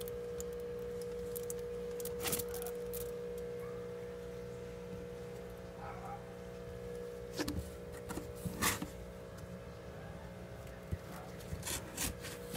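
Handling noise of a foil-wrapped petri dish and a cardboard box: a few brief taps and rustles, the most distinct about two seconds in and again around seven to nine seconds, over a steady electrical hum.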